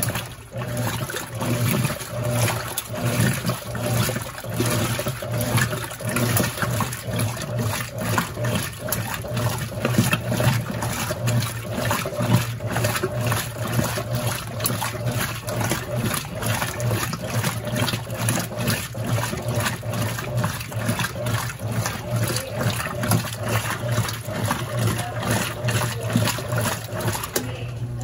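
Brastemp Total 9 kg top-load washing machine agitating during the rinse: its agitator churns the clothes back and forth, making rhythmic sloshing and swishing of water over a steady low motor hum.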